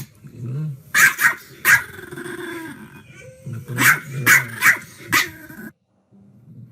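A dog barking and growling: two bursts of sharp barks, about three near the start and four around the middle, with low growling between them, stopping shortly before the end.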